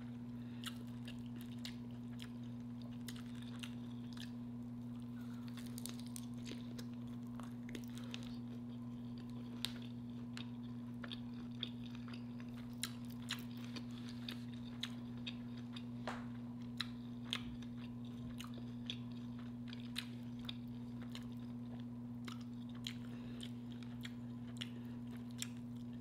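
Close-miked chewing of a meal, with small crunchy mouth clicks at irregular intervals over a steady low hum.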